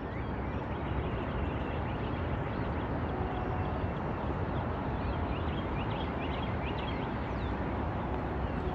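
Small birds chirping over a steady outdoor rushing noise.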